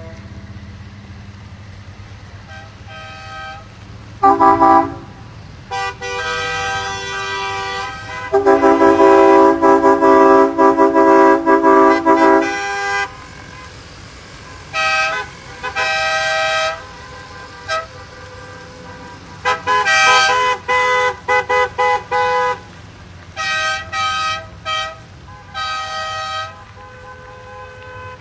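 Car and pickup-truck horns honking as a convoy of vehicles passes, over the steady sound of engines and tyres. There are a few short toots, then one long blast of about four seconds, the loudest, starting about eight seconds in, then a string of quick toots in the second half.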